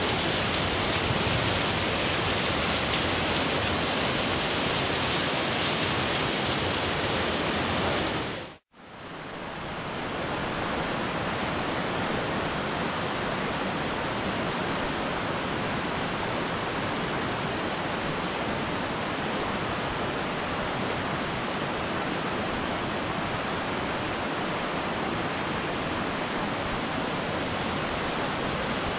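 Steady rush of a small waterfall pouring into a river pool. About eight and a half seconds in the sound breaks off for an instant and gives way to the steady rush of a shallow river running over stones.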